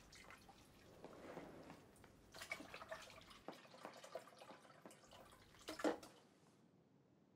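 Dishes being washed by hand at a kitchen sink: faint dripping and splashing water with light clinks of crockery, a sharper clink about six seconds in, then near silence.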